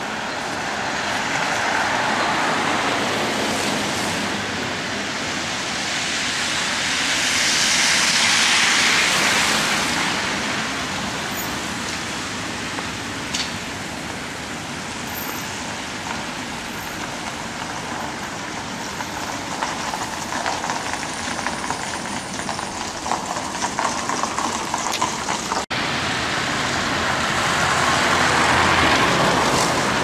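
Street ambience in a snowstorm: a steady hiss of tyres on a snowy road that swells three times as vehicles pass. Scattered crackling comes in the latter part, and there is a brief dropout at a cut.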